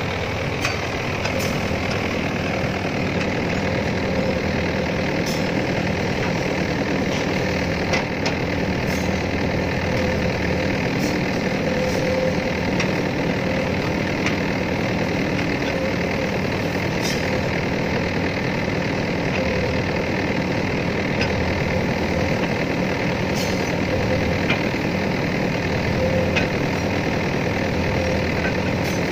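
A heavy diesel engine running steadily at low revs, with a few faint ticks over it.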